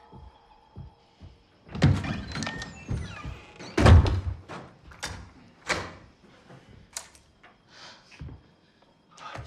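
Heavy thumps and knocks at a wooden door: two loud blows about two and four seconds in, then a run of sharper, shorter knocks.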